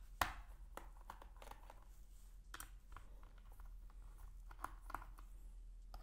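Faint, scattered clicks and scrapes of a small screwdriver turning out the bottom-panel screws of a Dell Inspiron 13 laptop.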